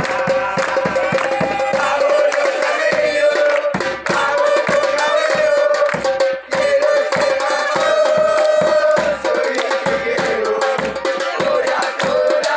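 Supporters' drum band of bass drums and snare drums playing a fast, steady beat, with a held melody carried over the drums.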